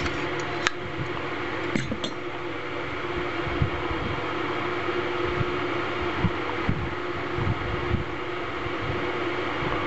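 A steady fan-like mechanical hum with a constant tone. A couple of light sharp clicks come about one and two seconds in, and soft low bumps from handling recur throughout.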